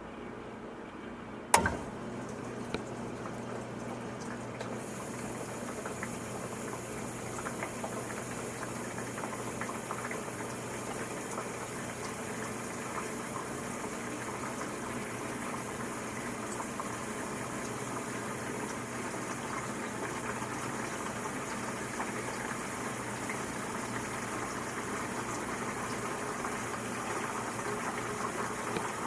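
Dishwasher running its wash cycle: a steady motor hum under sloshing, splashing water. A single sharp click comes about a second and a half in, and a few seconds in the water spray turns brighter and hissier and keeps going.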